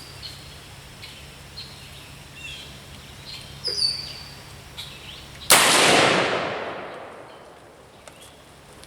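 One rifle shot from a Springfield M1A in .308, sharp and loud about five and a half seconds in, its echo dying away over about two seconds. Faint bird chirps before it.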